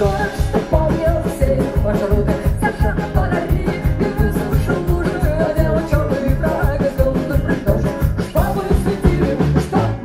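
Live rock band playing: acoustic-electric guitar, electric bass and drum kit keep a steady beat while a woman sings.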